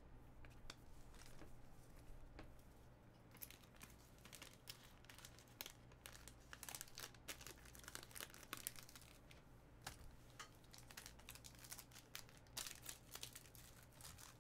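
Faint crinkling and crackling of packaging being handled, irregular and sparse at first, then busier from a few seconds in.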